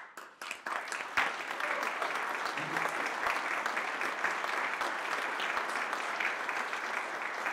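Audience applauding. The clapping picks up about a second in and holds steady.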